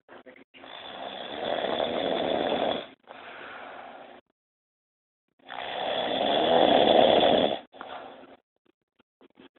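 A person snoring loudly: two long snores about five seconds apart, each swelling over a couple of seconds, with a softer breath after the first.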